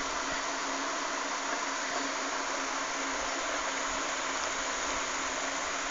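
Steady, even hiss of background noise with a faint low hum underneath, unchanging throughout and with no distinct events.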